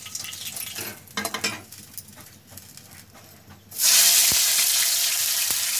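A metal spatula scraping and clicking in an iron kadhai of hot oil, then sliced onions go in at about three and a half seconds and set off a loud, steady sizzle.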